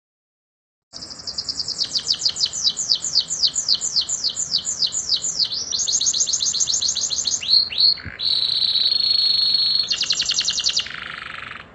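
Domestic canary singing a long rolling song: starting about a second in, a run of repeated downward-sweeping notes, then a faster trill, two slurred notes, a steady held high note, and a final rapid trill.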